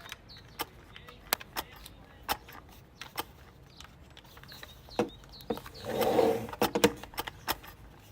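A series of sharp, irregular clicks and knocks, with a short louder rush of noise about six seconds in.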